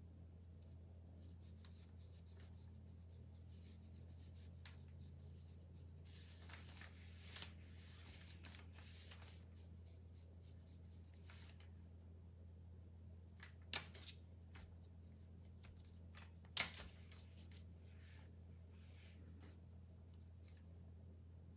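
Faint scratchy strokes of a small paintbrush working paint over a wooden cutout letter, over a low steady hum, with two sharp taps past the middle.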